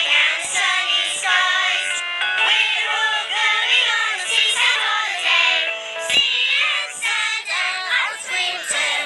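A group of cartoon voices, children's and grown-ups', singing a cheerful song together over a musical backing.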